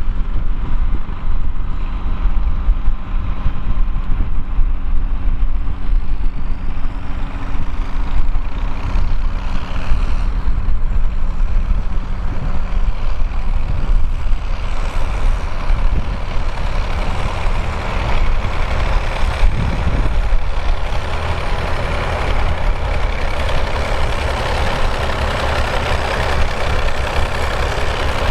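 John Deere 2140 tractor's diesel engine running steadily, with a broader mechanical noise growing louder about halfway through.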